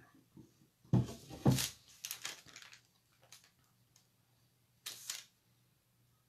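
A cluster of sharp knocks about a second in, then a few lighter taps and clicks, as a paint palette is moved and set down on the table and a paintbrush is tapped and worked.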